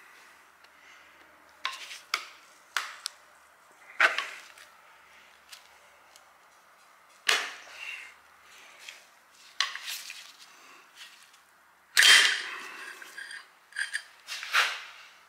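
Steel screwdriver knocking and prying at a valve spring and stuck valve in the cast-iron block of a Ford flathead V8: irregular sharp metal knocks and scrapes, the loudest about twelve seconds in. The valve is stuck in its guide with its retainer clip already out.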